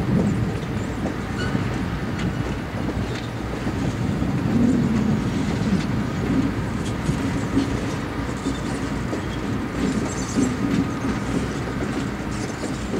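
Passenger cars of a train rolling past with a steady rumble, their wheels clicking over the rail joints.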